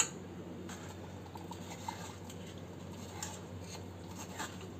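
A metal spoon scraping and pressing thick raw-mango syrup through a stainless steel mesh strainer, with faint irregular scratchy ticks, straining out the pulp and bits. A sharp clink right at the start.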